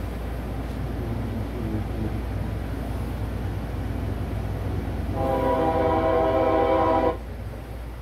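Nathan K5HLL five-chime locomotive horn sounding one loud, steady blast of about two seconds that cuts off abruptly, over the low rumble of a passing diesel freight train, played through a TV's speakers.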